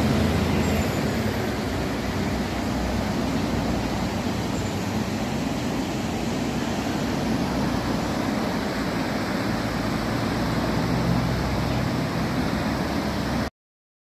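Steady rushing of a rain-swollen stream in a wadi, cutting off suddenly near the end.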